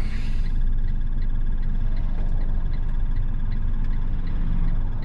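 Cargo van cab: steady low engine and road rumble, with the turn-signal indicator ticking about three times a second. A brief hiss sounds in the first half second.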